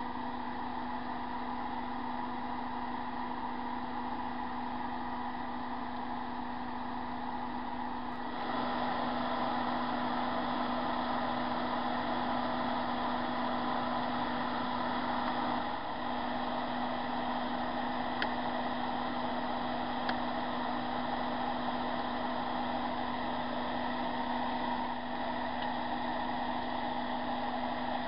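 Steady whirring hiss with a low hum, like a small fan or motor running, that steps up a little about eight seconds in; a few faint ticks.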